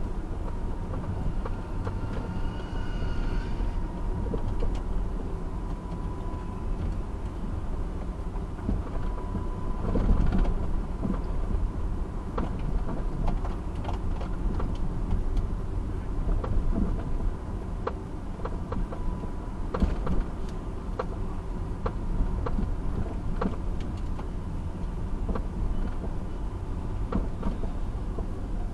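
Car driving through city streets, heard from inside the cabin: a steady low rumble of engine and tyres, with frequent small knocks and rattles and a louder bump about ten seconds in.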